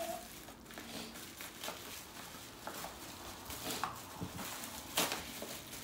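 Plastic packaging and bubble wrap rustling and crinkling as a package is unwrapped by hand, in short irregular crackles with a sharper one about five seconds in.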